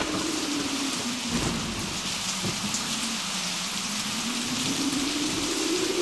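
Steady hiss like falling rain, with a low humming tone that slowly dips and then rises again.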